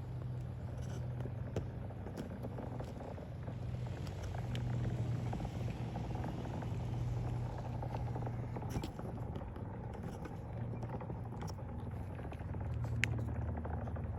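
Roar of a Falcon 9 rocket's nine Merlin engines climbing after liftoff, heard from a distance as a steady low rumble with scattered crackles.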